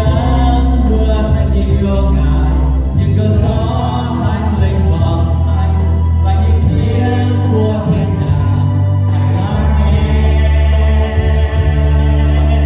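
Worship music: a band with a strong bass line and drums, with several voices singing together over it.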